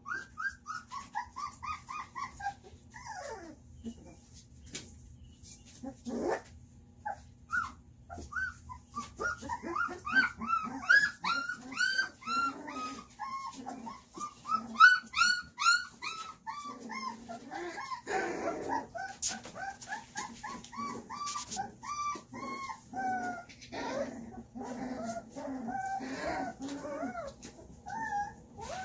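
Young puppies whining and yipping: a stream of short, high, arching cries, sparse at first and then almost continuous, with several pups calling over one another.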